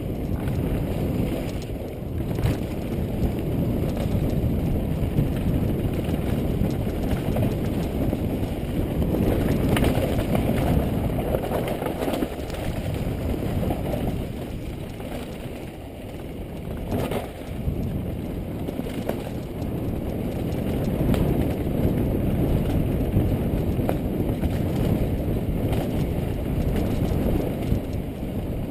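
Mountain bike descending a dirt and gravel downhill trail at speed: a steady, muffled rumble of tyres on the ground and the bike rattling, with occasional sharp knocks over bumps.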